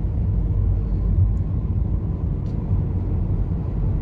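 Car driving along a wet road, heard from inside the cabin: a steady low rumble of engine and road noise.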